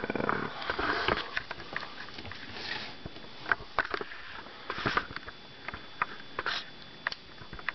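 A 1991 Sleepy Sounds Mickey Mouse bedside light playing its sleep sounds through its small built-in speaker: soft breathy swells with scattered clicks.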